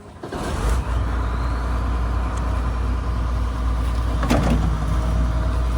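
Heavy, steady low rumble of a running vehicle or farm machine engine, starting abruptly, with a single click about four seconds in.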